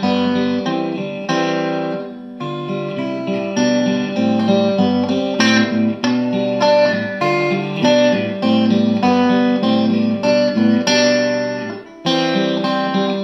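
Electric guitar played through the Dynamo GTS Flight Rig's all-tube clean channel with the gain turned up. It plays a run of ringing chords and picked notes, with short breaks about two seconds in and near the end.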